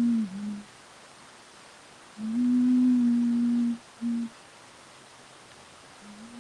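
A voice humming a low, steady note, held for about a second and a half at a time and each time followed by a short clipped note; the pattern comes twice and starts again near the end.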